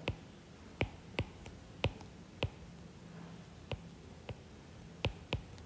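About ten sharp, irregularly spaced clicks of a stylus tip tapping on a drawing tablet as a chemical structure is written stroke by stroke.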